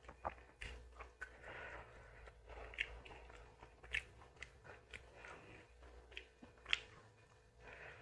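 Close-miked chewing and biting of a meal, with wet mouth sounds and a few sharp crunches, the loudest about three-quarters of the way through.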